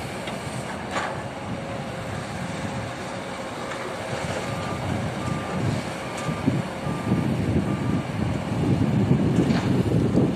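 Heavy construction machinery running, with a vehicle's reversing alarm sounding a series of short, evenly spaced beeps starting about halfway through. The engine noise grows louder near the end.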